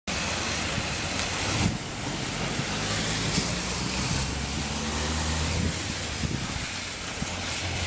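Steady rain hiss with the low, steady hum of a vehicle engine running on the street.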